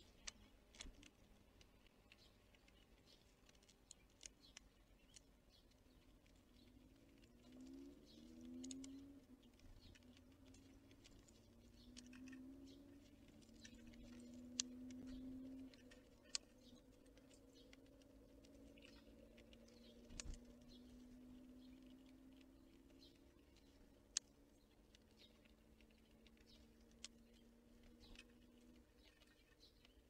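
Faint, scattered sharp ticks and taps at a forest bird feeder, typical of small birds or squirrels pecking at seed and landing on the feeder. A faint low drone slides upward in pitch and fades through the middle.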